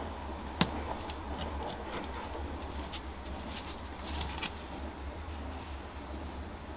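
Light clicks and taps of tweezers and small model rails being handled on a plastic turnout sleeper base, with one sharp click about half a second in and a scatter of small ticks after it.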